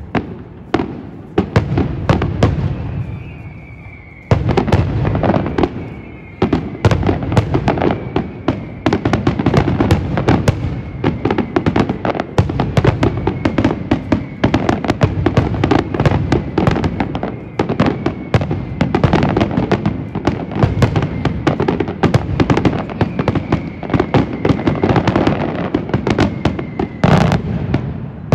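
Aerial fireworks display: a rapid, near-continuous barrage of shell bursts and crackling stars, thinning briefly about two to four seconds in, then bursting densely again.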